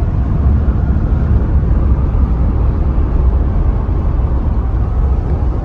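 Steady, low rumble of a Jeep's engine and tyres heard from inside the cab while cruising at speed on a paved highway.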